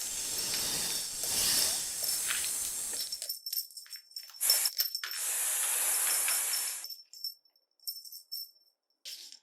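Snake hissing sound effect, steady for about three seconds, then cutting off into short, broken rattles and jingling, with one longer hiss in the middle and quiet gaps toward the end.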